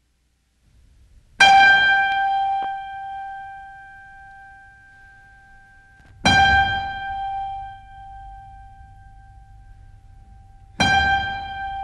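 Sparse keyboard score: the same single high note struck three times, about every four and a half seconds, each left to ring and slowly fade, over a faint low hum.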